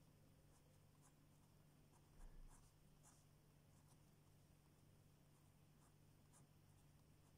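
Pen scratching on paper in short, faint writing strokes, with a single low thump about two seconds in.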